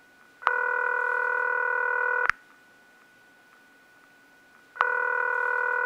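Telephone ringback tone heard down the line: a steady buzzing ring lasting about two seconds, a pause of a couple of seconds, then a second ring. A faint steady line hum sits under it.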